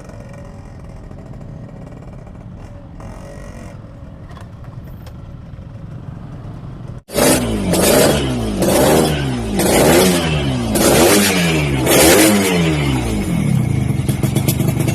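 Yamaha RX-King two-stroke single-cylinder motorcycle engine: a quieter steady running sound, then, after an abrupt change about halfway in, the throttle is blipped about six times, each rev rising and falling in pitch, before it settles into a fast, crackly two-stroke idle.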